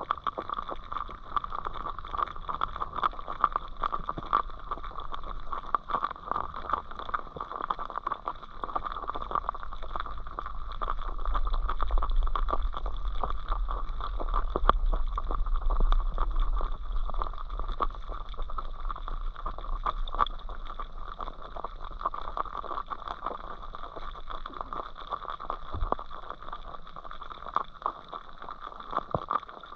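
Underwater sound heard through a submerged camera on a riverbed: a steady hum under dense crackling and clicking, with a low muffled rumble that swells about a third of the way in and fades after the middle.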